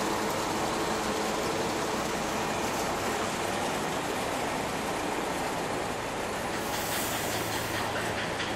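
Steady roadside traffic noise from double-decker buses and cars running along a busy city road, with a short hiss near the end.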